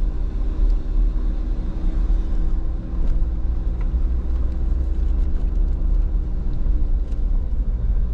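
Jeep driving slowly along an off-road trail, heard from inside the cab: a steady low engine and tyre rumble with a few faint ticks and rattles.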